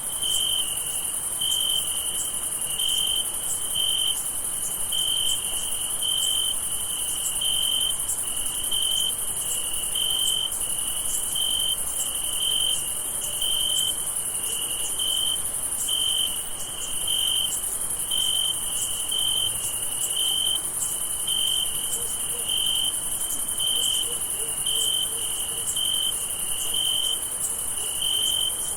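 Crickets chirping: one nearer cricket repeats a short, even chirp about one and a half times a second over a steady high-pitched chorus of insects.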